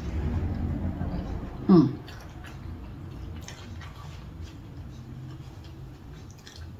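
Close-miked chewing and soft wet mouth clicks of someone eating a taco, with a short hummed 'mm' falling in pitch about two seconds in.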